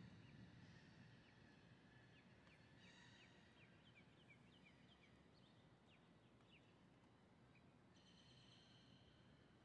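Faint bird calls over quiet background hiss: a run of short, quickly repeated chirps, with a longer harsh call about three seconds in and another near the end.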